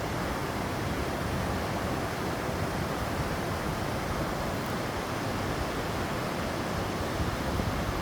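Mountain stream water rushing and tumbling over rocks, a steady, unbroken rush of water.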